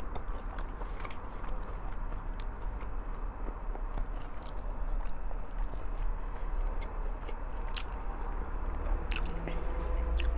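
Close-miked eating sounds: a person chewing and biting food, with small wet clicks and smacks from the mouth, over a steady low hum.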